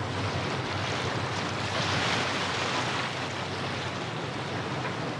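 Steady rushing noise of a river barge under way, water and wind, over a low steady engine hum. The noise swells a little about two seconds in.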